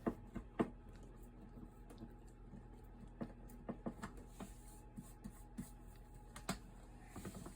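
Faint scattered clicks and light taps, about one or two a second, over a low steady hum.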